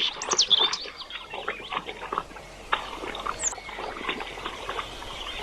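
Small birds chirping near the start and once more midway, over a steady patter of quick light clicks and rustles; a faint hiss comes in just before the middle.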